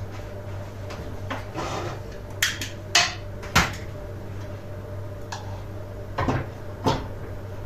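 Kitchen clatter of a metal cezve and spoon against the stove: a brief scrape, then about five sharp clinks and knocks spread over the few seconds, over a steady low hum.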